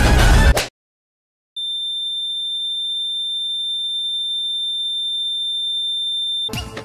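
Steady high-pitched pure-tone sound effect, the comic ear-ringing sting of someone left dazed. It starts after a second of dead silence and cuts off suddenly near the end.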